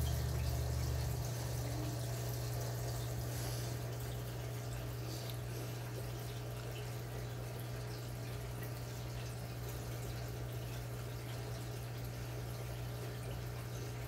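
Aquarium filtration running: a steady low hum with water trickling and dripping.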